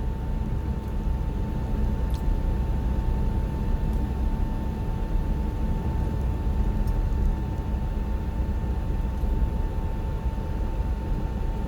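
Inside a moving car: steady road and engine rumble, with a thin steady whine running through it.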